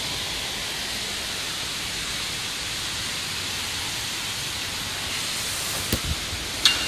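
Steady rain falling on wet pavement, an even hiss, with a couple of sharp knocks near the end.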